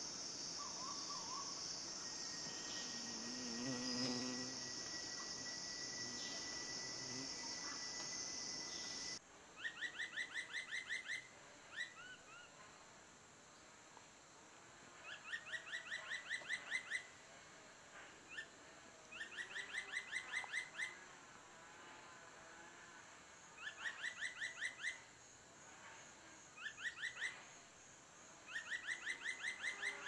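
Dull-capped attila singing: short phrases of about a dozen quick, rising whistled notes that grow louder through each phrase, repeated every few seconds. For the first third, before the song starts, there is only a steady high insect drone with a thin unbroken whine.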